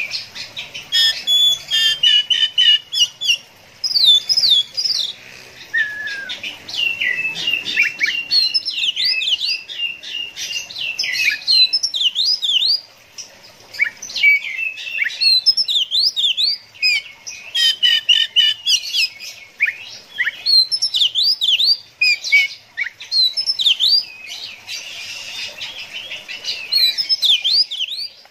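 Oriental magpie-robin (kacer) singing a long, varied song of rapid whistled phrases and trills, broken by a few short pauses.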